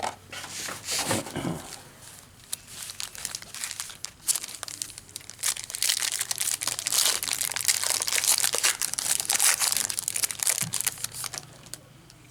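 Foil trading-card pack wrappers being torn open and crinkled, a dense crackling that gets louder in the second half.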